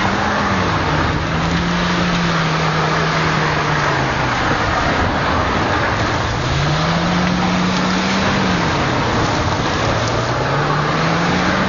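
Car engine revving up and dropping back several times while drifting on a muddy gravel track, heard from the open boot. Under it is a loud, steady hiss of tyres throwing mud and grit.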